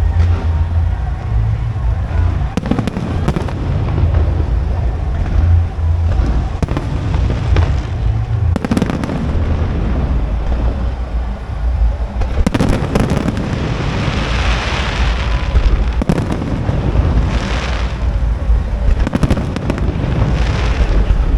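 Aerial fireworks display: shells bursting in a continuous run of deep booms and sharp bangs, with crackling effects breaking out a little past halfway and again twice near the end.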